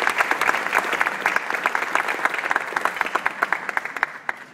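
Audience applauding with many hands clapping, the clapping thinning out near the end and then stopping.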